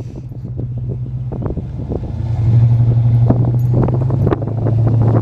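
Ford Mustang convertible driving with the top down: a steady low engine and road hum that grows louder about two seconds in, with wind buffeting and crackling on the microphone.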